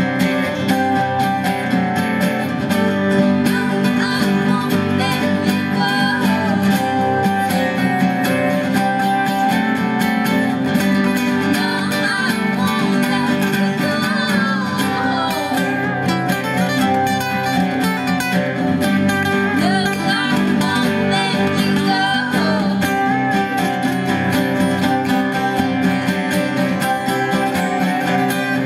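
Live pop band playing a song, with strummed acoustic guitars over drums and keyboard.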